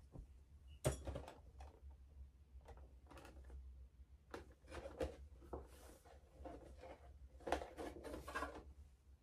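Soft handling noises of a boxed collectible figure: light taps and rustles of the cardboard-and-plastic box as it is picked up and turned over, over faint room hum.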